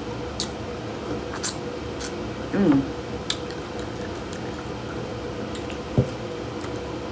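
Crawfish shells being cracked and peeled by hand while eating, with scattered sharp clicks and wet squishing. A short hummed vocal sound comes about two and a half seconds in, and a dull knock, like something set down on the table, near six seconds.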